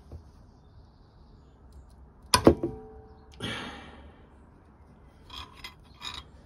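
A 17 mm socket and lever on a tight motorcycle oil drain bolt. About two and a half seconds in there is a sharp metallic crack with a brief ring as the bolt breaks free, then a short rasp and a few light clicks of the socket on the loosened bolt near the end.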